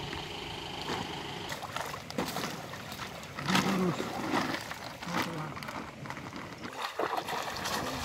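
Pond water splashing and sloshing irregularly around people wading waist-deep and handling fish, with a short stretch of voices about halfway through.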